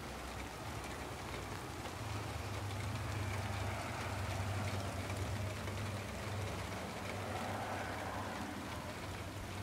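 Heavy rain of a sunshower cloudburst falling steadily on pavement and lawns, a constant hiss. A low rumble swells under it for a few seconds starting about two seconds in, then fades.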